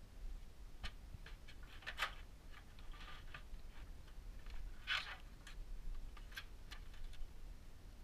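Light clicks, taps and short scrapes from an EVGA SuperNOVA 850 GS power supply being handled and set into the bottom of a PC case while its cables are moved. The two loudest are brief scrapes about two and five seconds in.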